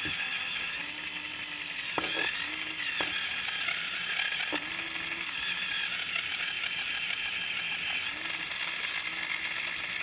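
Lego Technic 2-speed planetary gearbox running, its plastic gears rattling steadily, with a few sharp clicks about two, three and four and a half seconds in.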